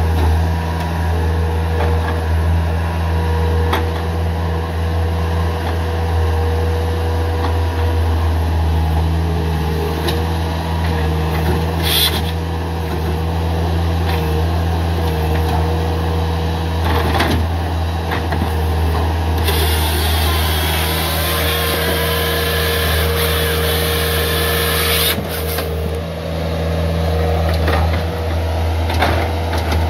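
Bobcat S300 skid steer's diesel engine running steadily under hydraulic load while its grapple saw handles logs, with a few sharp knocks. About two-thirds of the way in, a hiss comes in over the engine for about five seconds and then cuts off.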